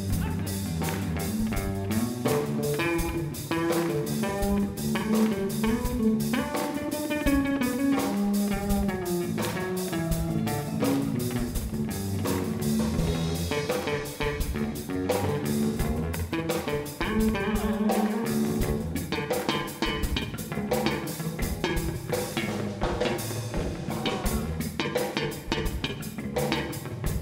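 Blues band playing live: electric guitar lines over a steady drum-kit beat and bass guitar, in an instrumental passage.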